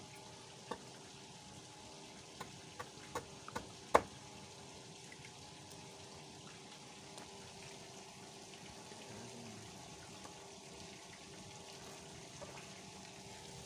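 A large kitchen knife knocking on a wooden plank as snakehead fish is cut into pieces: a handful of sharp knocks in the first four seconds, the loudest about four seconds in. Underneath, a steady watery hiss with a faint hum.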